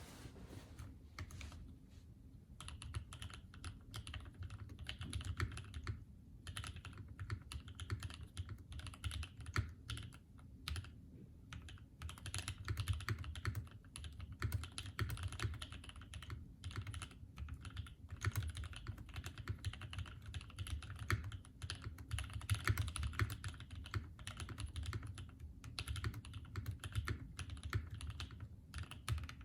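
Custom wilba.tech Thermal mechanical keyboard, with an aluminium plate, lubed Tangerine linear switches and GMK keycaps, being typed on in a fast, steady run of keystrokes. Brief pauses come now and then.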